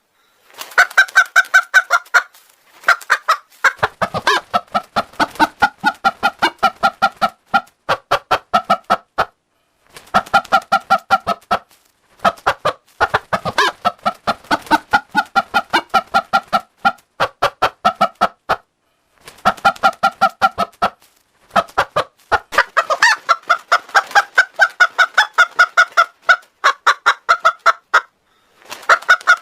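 Hen clucking altered by a voice-changer effect: runs of rapid clucks, each lasting a second or two, separated by short gaps.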